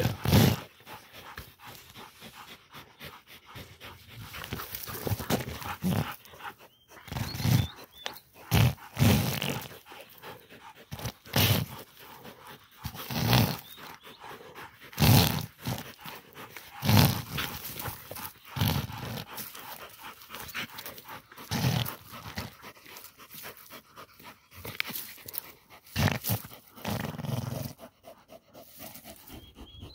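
Pit bull clamped onto a peccary's head, growling and panting in irregular loud bursts a second or two apart.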